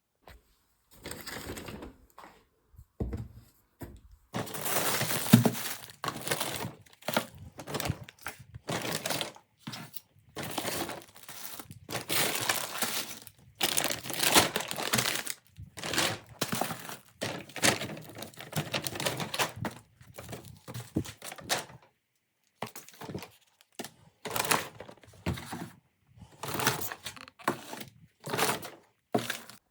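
Rustling and clattering of things being handled, in a string of short bursts broken by abrupt silences.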